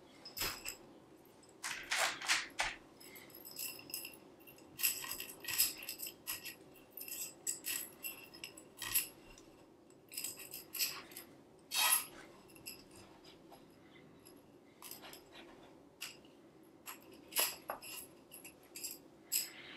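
Irregular light clicks and clinks of small hard objects being handled, some with a brief high ringing tone.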